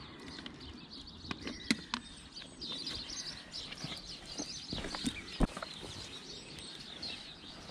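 Small birds chirping, with a few sharp clicks and knocks scattered through, the loudest a little over five seconds in.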